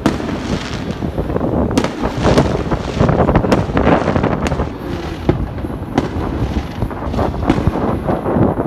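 Aerial fireworks bursting overhead: a continuous run of loud, irregular bangs, roughly one or two a second, overlapping with the rumble and crackle of further shells.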